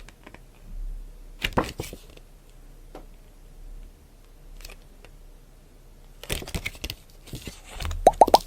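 Unboxing handling noise: scattered rustles and clicks of books and packaging being handled. Near the end comes a quick run of five or six short pops, each rising in pitch.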